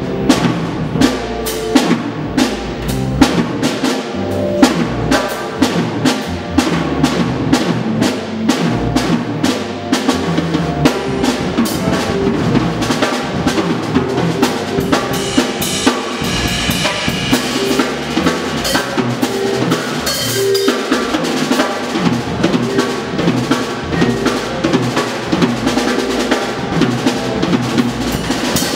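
Drum kit played busily and continuously, with quick snare and tom strokes, bass drum and cymbal crashes, over steady pitched notes from the rest of the jazz group.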